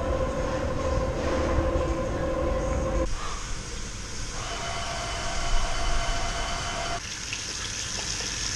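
Steady low room hum with faint steady tones for about three seconds, then, after a cut, water running from a washbasin tap over hands, its hiss strongest from about seven seconds in.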